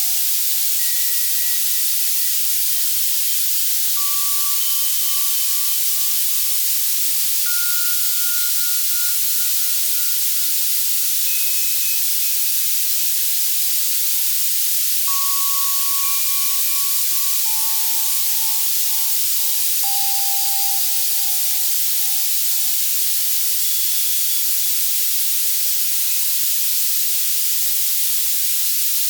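Steady, bright white-noise hiss from an Access Virus C synthesizer, with synthesized bell tones at scattered pitches sounding one at a time every few seconds and fading out over a second or two. A tinnitus-masking sound.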